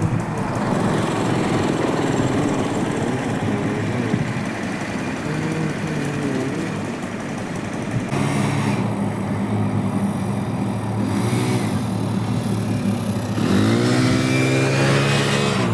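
Earthmoving machine's engine running at varying speed, then revving up sharply about two seconds before the end.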